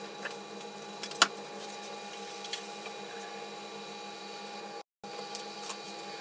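Steady mechanical hum of workshop equipment with several fixed tones, with one sharp tap about a second in. The sound drops out for a split second near the five-second mark.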